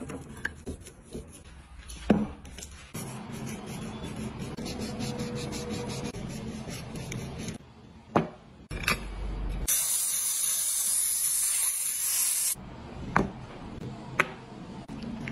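Close-up food-handling sounds: rubbing and scraping with many small clicks, and a loud hiss about ten seconds in that lasts about three seconds and cuts off sharply. Near the end come sharp clicks as a metal caviar tin is handled.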